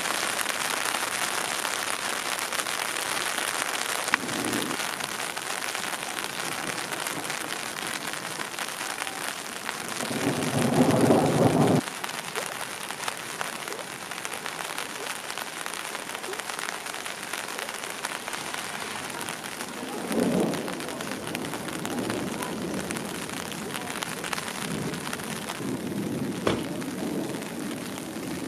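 Steady rain falling on a flooded street, a continuous hiss of drops on standing water. A louder low rumble rises about ten seconds in and stops abruptly two seconds later, with fainter rumbles later on.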